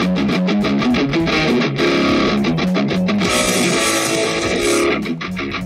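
Guitar-led music playing through a sound system fed by a Bluetooth receiver, streamed from a paired phone to test that the connection works; it eases slightly near the end.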